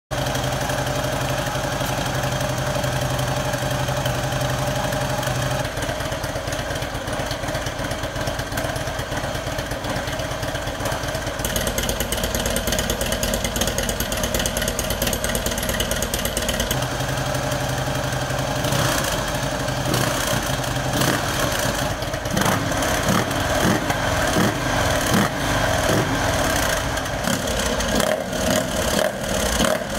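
A 2014 Harley-Davidson CVO Road King's Twin Cam 110 V-twin engine idling through an exhaust with the catalyst removed and home-made baffles fitted. It runs evenly at first, then with repeated short surges from a little past halfway.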